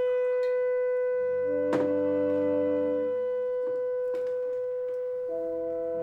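Slow film score for a small chamber ensemble of clarinet, French horn, cello, double bass and piano: one long held wind note over soft low notes, with new notes entering about five seconds in. A short click about two seconds in.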